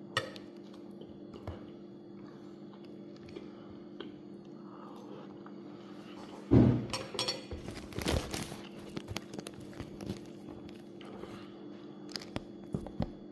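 Knocks and clinks of plates and cutlery at a breakfast table, with one loud thump about six and a half seconds in and lighter taps after it, over a steady low hum.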